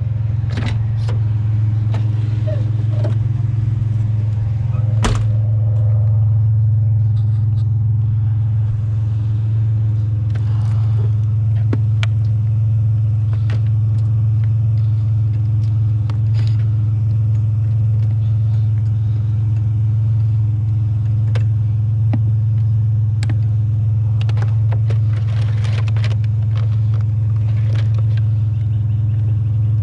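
A truck engine idling with a steady low hum. Scattered short sharp clicks and snips over it as cords are cut off scrap with snippers.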